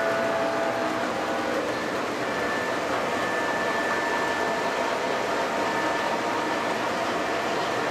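O scale model freight trains running on the layout track: a steady rolling rumble of wheels and motors. A diesel horn chord from a locomotive's sound system fades out in the first second or so.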